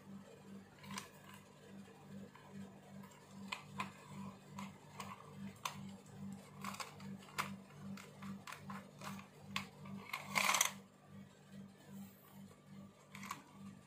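Light clicks and knocks of a 4x ACOG-style scope and its mount being handled and fitted onto the rail of an airsoft HK416 rifle, with one louder scrape about ten seconds in as the mount slides onto the rail. A faint steady pulsing hum sits underneath.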